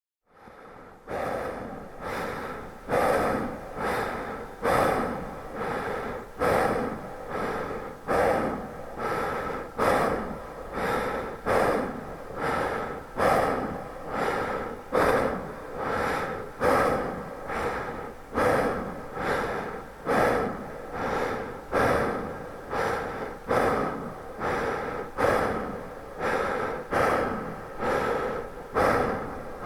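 A man breathing deeply and heavily, in and out, in an even rhythm of about one full breath every two seconds, starting about a second in.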